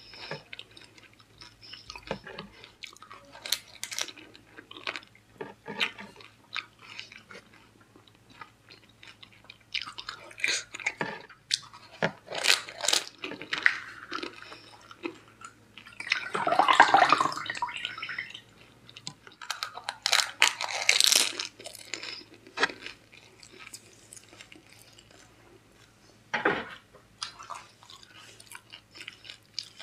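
Close-miked chewing and crunching of pani puri (golgappa), the crisp hollow puri shells cracking between the teeth in irregular bites. It is loudest in two spells a little past the middle.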